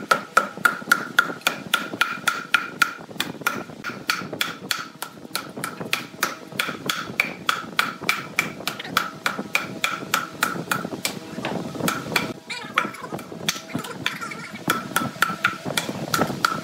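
Wooden mallet repeatedly striking a dry log to knock its bark loose, about three blows a second, each a sharp knock with a short ring. The blows thin out for a moment about two-thirds of the way through.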